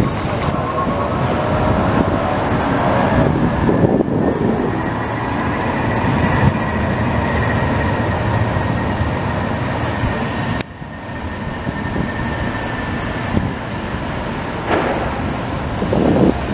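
CAF Urbos electric trams passing close by: a steady rumble of steel wheels on the rails with a whine that glides in pitch during the first few seconds. About ten and a half seconds in the sound drops abruptly to a quieter tram pass.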